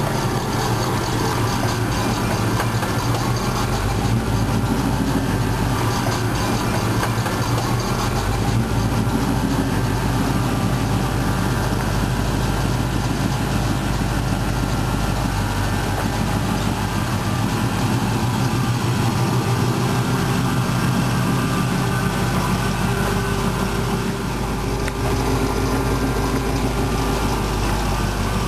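V8 engine of a 1995 Chevy S-10 pickup idling steadily.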